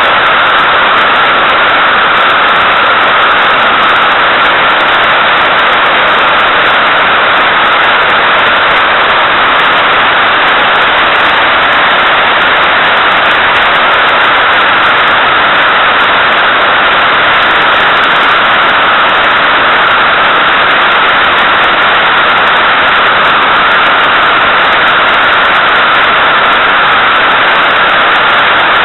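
Loud, steady rush of airflow over a small camera mounted on the tail of an SZD-50 Puchacz glider in engineless gliding flight.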